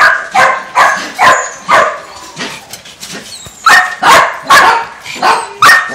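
Shelter dogs barking repeatedly, sharp loud barks about two a second, easing off for a moment in the middle and then picking up again.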